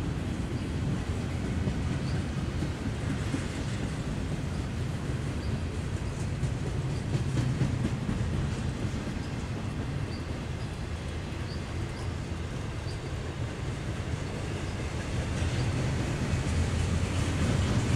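Double-stack intermodal well cars of a freight train rolling past: a steady low rumble of steel wheels on rail, getting louder near the end.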